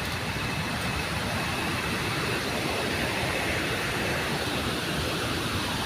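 Steady rush of flowing water from the river and cascades, an even hiss with no breaks.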